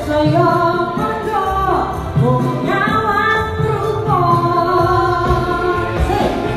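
A woman singing a dangdut song into a handheld microphone, holding long, wavering notes over backing music with a steady low beat.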